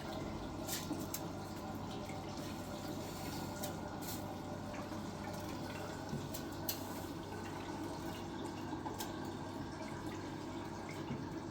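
Water trickling and dripping in a small room, with short, sharp clicks scattered irregularly throughout.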